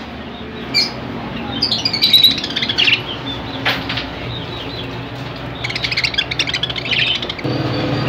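Caged budgerigars chirping and twittering in bursts: a short burst about a second in, a longer one from about two to three seconds in, and another near the end, over a steady low hum.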